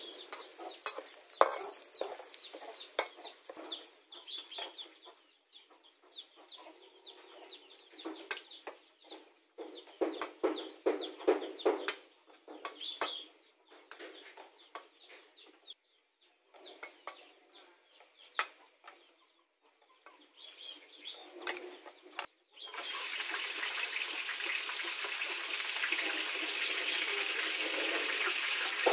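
A metal spatula scrapes and taps against a steel wok as a paste is stirred, and chickens cluck. About 23 seconds in, a loud, steady sizzle starts as ground pork fries in the hot wok.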